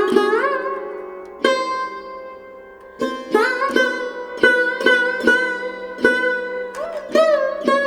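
Background instrumental music: a sitar-like plucked string melody with bending notes over a steady drone. Slow single plucks give way to quicker notes about three seconds in.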